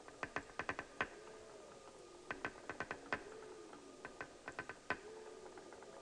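Underwater recording of a walrus making its knocking call: sharp knocks in quick irregular clusters every second or two, over a faint hiss with a low wavering tone underneath.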